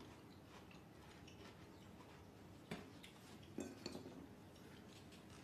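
Near silence: room tone with a few faint light clicks, around three to four seconds in, of fingers reaching into a ceramic dish for a grape.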